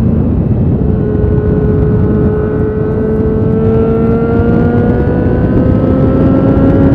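Motorcycle engine running under steady throttle at road speed, its note dipping slightly about a second in and then rising slowly as the bike gains speed, with heavy wind rush on the onboard microphone.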